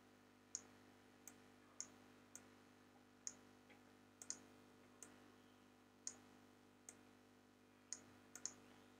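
Computer mouse clicking: about a dozen short, sharp clicks at irregular intervals, some in quick pairs, over a faint steady hum.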